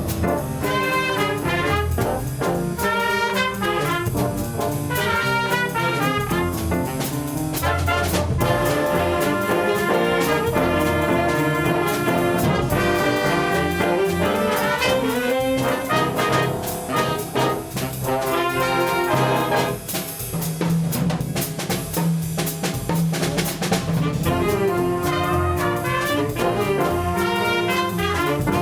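Music: a brass ensemble playing with drums, with continuous sustained notes and frequent percussion hits.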